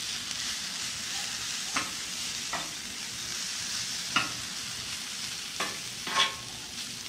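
Shredded potatoes frying on a Blackstone flat-top griddle, a steady high sizzle. A metal spatula clicks and scrapes against the steel cooktop about five times as the potatoes are turned, the sharpest stroke near the end.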